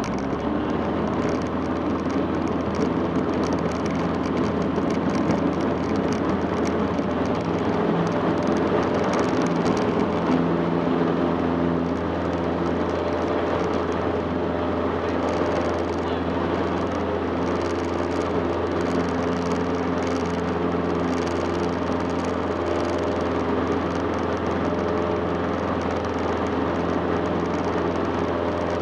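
Cessna 150's four-cylinder Continental O-200 engine and propeller running steadily at full takeoff power. The sound is rougher for the first twelve seconds or so, during the roll down the dirt strip, then smooths as the plane climbs away.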